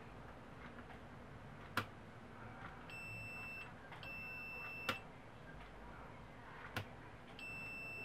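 Sharp clicks of a miniature toggle switch being flipped, three in all, and a UNI-T multimeter's continuity beeper sounding a high steady beep three times, each under a second: the switch contacts closing and showing continuity.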